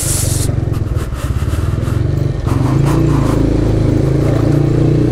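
Motorcycle engine running at low riding speed, a steady drone that picks up slightly about halfway through.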